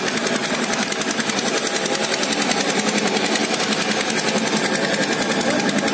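A fast, even mechanical rattle with many beats a second, holding steady throughout.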